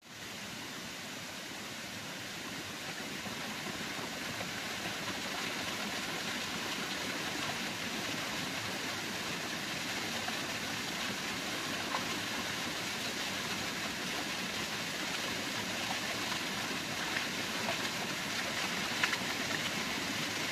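A steady rushing noise with no clear pitch, growing a little louder over the first few seconds and then holding even, with a single sharp tick near the end.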